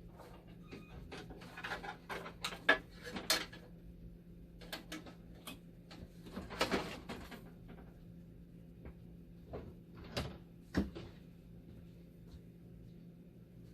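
Irregular clicks, knocks and rattles of hands disconnecting and handling parts inside a dialysis machine while removing its power supply, over a steady low hum.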